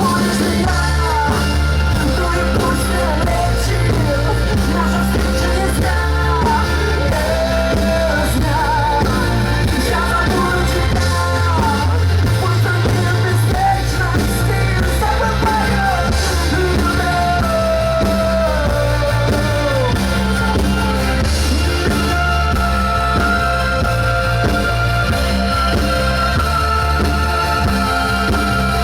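Live band performing a song, with singing over a steady bass line.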